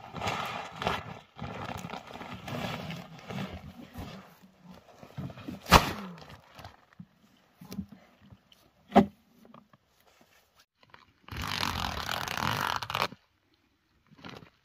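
Close handling noise from a plastic fertilizer sack and a plastic bucket: irregular rustling and scraping, two sharp knocks about six and nine seconds in, and a louder stretch of rustling of under two seconds near the end.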